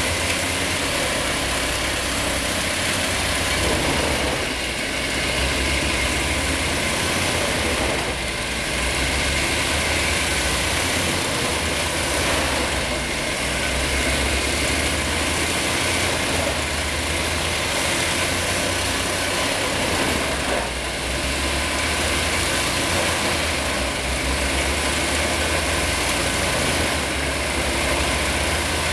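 Truck-mounted whole-tree wood chipper running under load as a whole tree is fed in and chipped: a steady heavy engine drone under a loud, broad grinding noise that dips briefly every few seconds.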